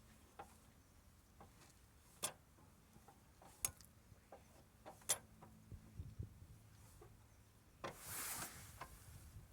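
Car jack being cranked down, with sharp metal clicks about every second and a half among fainter ticks, and a short scraping rustle near the end.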